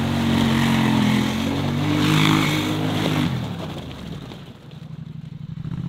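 Polaris Scrambler 850 ATV engine revving hard as the quad spins donuts on the ice. The revs climb about two seconds in, then the throttle is let off just after three seconds and the engine falls away toward idle, picking up again near the end.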